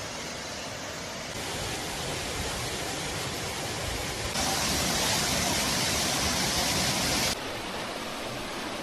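Waterfall rushing as a steady roar of falling water. It gets louder in sudden steps about one and a half and four and a half seconds in, then drops sharply near the end.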